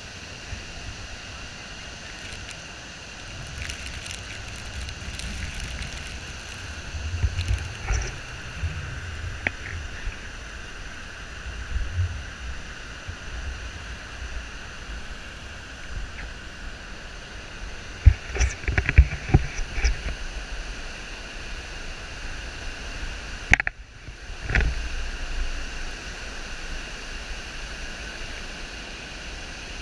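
Gullfoss waterfall, heard close up: a steady rushing roar of falling water. Low gusty rumbles hit the microphone now and then, most around two-thirds of the way through, and the sound cuts out for a moment shortly after.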